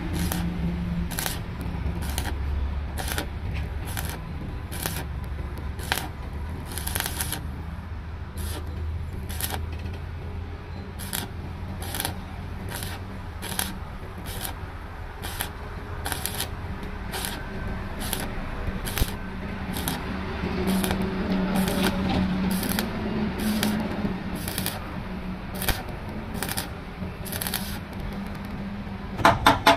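Stick (shielded metal arc) welding on a truck's steel chassis frame: the arc crackling, with irregular sharp pops over a steady low hum, as a crack in the frame rail is filled with weld. A fast run of ticks starts right at the end.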